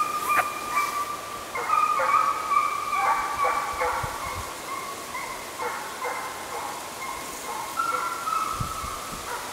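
Russian hounds giving tongue as they run a hare's trail: long, drawn-out baying notes with short breaks, at times two voices overlapping. The continuous voice is the sign that the pack is on the scent and driving the hare.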